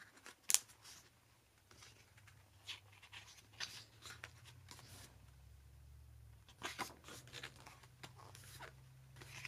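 Pages of a thick paper photobook being turned by hand: soft, scattered rustles and flicks, the sharpest about half a second in.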